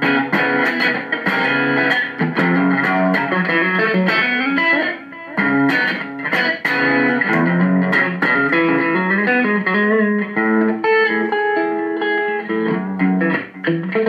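Electric guitar played through the Zoom G3Xn multi-effects pedal's Marshall amp simulation and heard from the amplifier in the room: a continuous phrase of picked notes and chords, with a brief dip about five seconds in.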